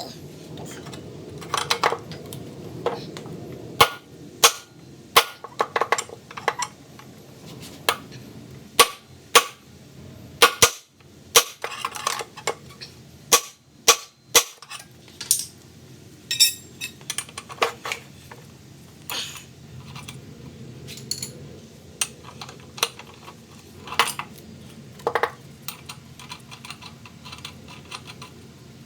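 Hammer tapping on a pry bar wedged under the flywheel of a Briggs & Stratton Classic lawnmower engine: a long series of sharp metallic taps at irregular intervals, working the flywheel loose from the crankshaft.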